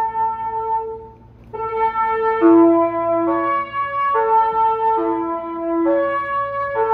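Meitetsu musical horn on the arriving 2000 series μSKY train, playing its melody over and over as the train comes in: a chord of held notes stepping up and down in pitch. About a second in there is a brief break as one round of the tune ends and the next begins.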